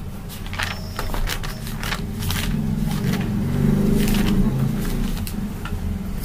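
Paper pages rustling and flicking as a notebook and loose sheets are leafed through, with a low rumble underneath that grows louder in the middle and then eases off.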